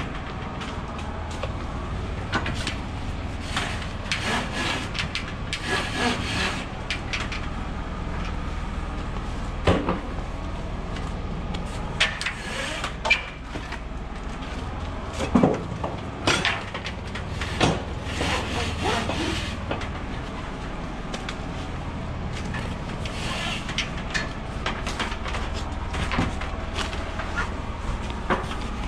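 Load-securing gear being handled on a curtainsider trailer deck: ratchet straps and wooden slats rubbing and scraping, with irregular knocks of wood, over a steady low hum.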